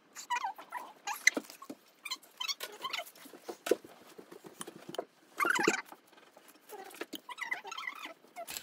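Metal palette knife spreading and smoothing whipped cream over a sponge cake layer: irregular soft, wet squishing and scraping strokes, with one louder smear about five and a half seconds in.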